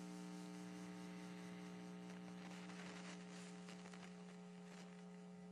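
Faint steady electrical mains hum: one low tone with a ladder of evenly spaced higher overtones, unchanging throughout.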